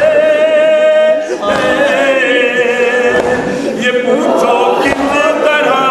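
Nauha, a Shia Muharram lament, sung unaccompanied by male voices, with several voices joining together on long, held, wavering notes.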